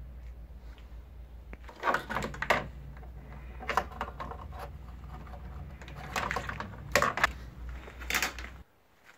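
Small 12 V electric diaphragm pump running with a low steady hum, drawing engine oil out through the dipstick tube, then cutting off suddenly near the end. Over it come sharp clicks and rattles of handling.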